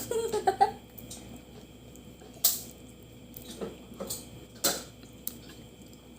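Eating crab by hand: scattered sharp clicks and cracks of crab shell and utensils against dishes, with soft wet handling sounds between, the loudest about two and a half and four and a half seconds in. A brief voice sound just after the start.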